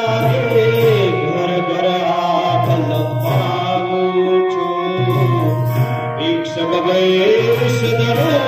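A song sung live to an electronic keyboard: the keyboard holds steady sustained notes under a wavering vocal melody.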